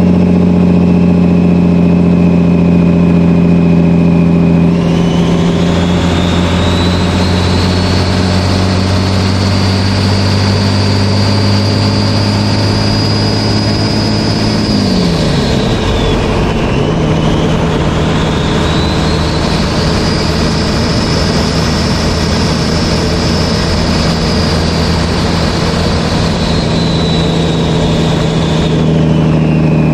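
12-valve Cummins diesel running with the high whistle of its 62/65/14 turbocharger over the engine: the whistle climbs as the turbo spools up and holds high. Midway the engine note dips briefly and the whistle falls with it, then both come back and the whistle climbs again before falling away near the end.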